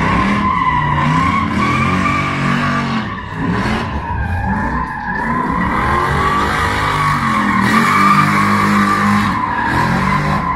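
A compact pickup truck drifting: tires squealing without a break while the engine revs rise and fall as it slides through the turns.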